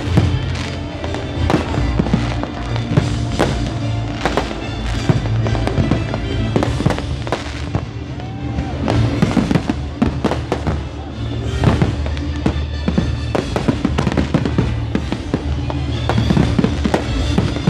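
Fireworks display going off, with many sharp bangs and crackles in close succession throughout, over music playing in the background.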